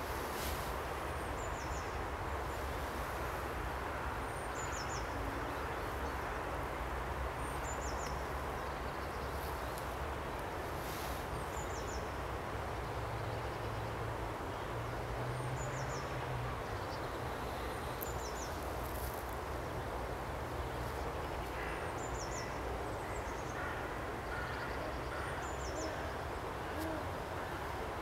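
Steady outdoor background noise with a low rumble, over which a bird gives short high-pitched calls, repeated every two to three seconds.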